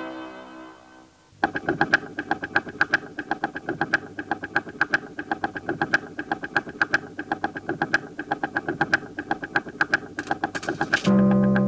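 A bell-like chime fades out. About a second and a half in, fast mechanical ticking and clicking of clockwork starts, about five clicks a second, over steady held musical tones. Near the end a loud, low sustained chord comes in.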